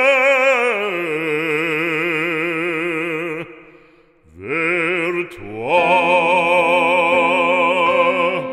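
Operatic male voice singing a French sacred song, with wide vibrato on long held notes. One note sinks in pitch and fades out about three and a half seconds in; after a short breath the voice climbs to another long held note.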